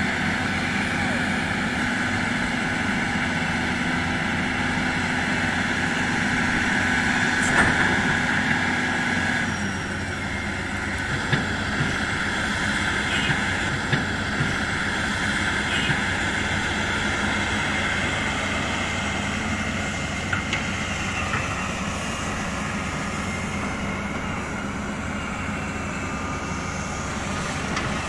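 Diesel engines of hydraulic excavators running steadily, the engine note dropping about ten seconds in, with a few sharp metallic clanks shortly after.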